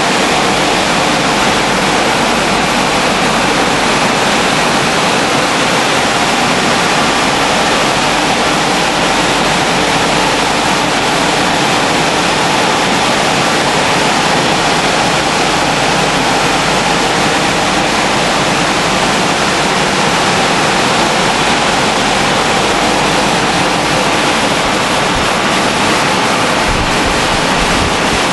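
Automatic rollover car wash working over a car: a steady, loud rush of spraying water and machine noise.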